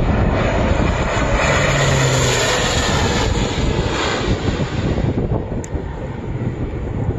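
Air Tractor single-engine air tanker flying low past, its engine and propeller loud and steady, then fading somewhat after about five seconds as it draws away.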